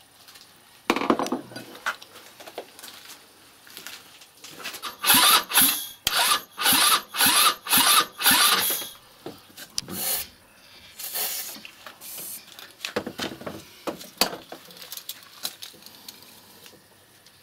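Short rasping hisses in quick succession, about two a second for several seconds, then a few more: fuel or cleaner being squirted into a 161QMK scooter engine to prime it for a start after long disuse. There is a duller knock about a second in.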